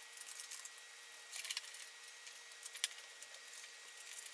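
Faint clicks and light ticks of small screws and nuts being handled and threaded by hand onto a wooden panel, with a small cluster of clicks about a second and a half in and a sharper click a little before three seconds in.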